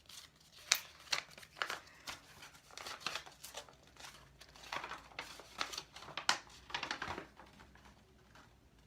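A paper invoice crinkling and rustling as it is handled and unfolded: a string of irregular rustles that die away about seven and a half seconds in.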